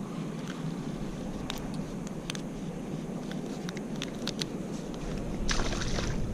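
Scattered light clicks and taps from handling fish and tackle aboard a kayak, over a steady low rumble of wind and water. A short rush of noise comes about five and a half seconds in.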